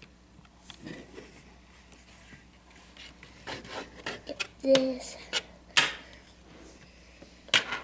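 Table knife scraping and tapping on a metal baking sheet while cutting through Play-Doh: a run of scrapes starting about three seconds in, with several sharp clicks of the blade striking the pan.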